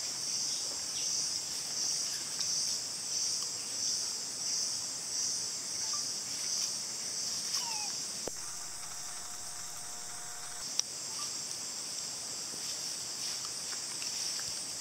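A high, steady insect drone that pulses about once every 0.7 s for the first eight seconds, then holds even, with a single sharp click near the end.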